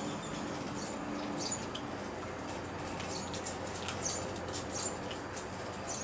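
Kittens eating dry kibble from a plate: many small, irregular crunches and clicks as they chew and nose through the pellets.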